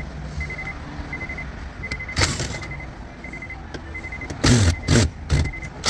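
Car's electronic warning chime beeping steadily, a short high beep about every three quarters of a second, while the dash is apart; a sharp click about two seconds in and a few loud knocks near the end as the radio's top screws are worked on.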